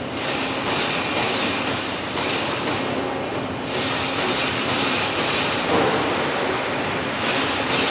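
Wire fence-making machine running: a dense, steady metallic clatter with a high hiss that drops away briefly about three seconds in and again near the end.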